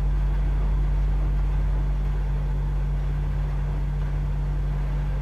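Okra deep-frying in hot mustard oil, a faint even sizzle, under a loud steady low hum.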